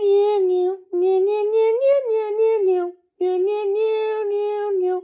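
A voice singing or humming a simple wordless tune in long held notes, three short phrases with brief breaks between them.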